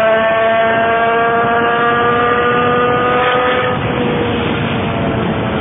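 A loud sustained two-tone signal, its pitch creeping slowly upward, cuts off about four seconds in, leaving a steady rumble of vehicle noise.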